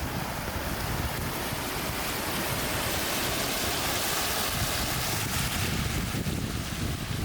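Waterfall rushing as a steady, even roar, with wind rumbling on the microphone.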